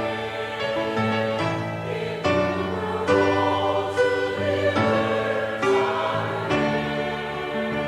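Church choir singing a hymn with instrumental accompaniment, sustained chords changing about once a second.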